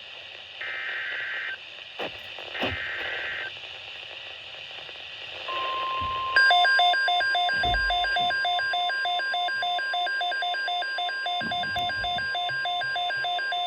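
Emergency Alert System signals from a NOAA Weather Radio broadcast: two harsh, buzzing digital SAME data bursts about a second apart, then the steady 1050 Hz weather alert tone. About a second after the tone begins, a rapid beeping of a few beeps a second starts alongside it.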